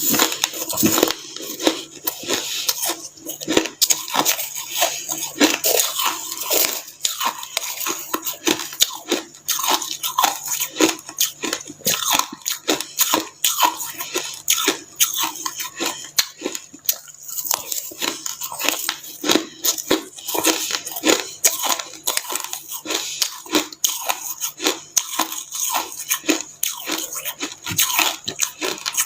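A person biting and chewing white snow ice close to the microphone: a continuous run of crisp crunches, several a second.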